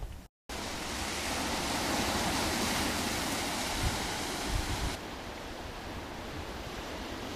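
Surf breaking and washing over a boulder shore: a steady rushing hiss, fullest in the middle, that drops to a softer wash about five seconds in.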